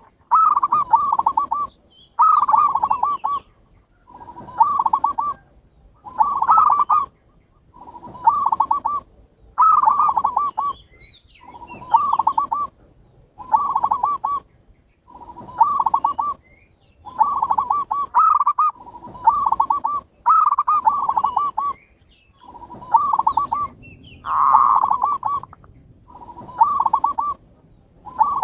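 Zebra doves (perkutut) cooing: a steady series of trilled, rolling coo phrases, one about every two seconds, each ending in a quick stutter of notes.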